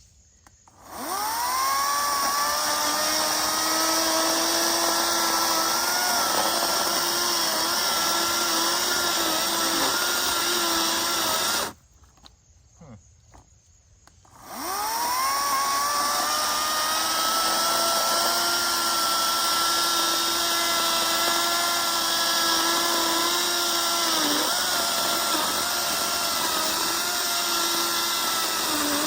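EGO 56-volt battery chainsaw with a 16-inch bar cutting a large log. Its electric motor whines up to speed and runs under load, cuts out abruptly about halfway through, and whines back up to speed a few seconds later. The owner isn't sure why it stalls and wonders whether he bumped its safety cutoff.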